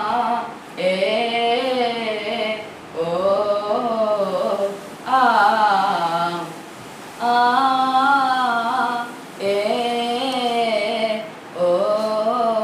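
A boy singing a Malayalam folk song (nadan pattu) a cappella, in phrases of about two seconds with short breaths between them.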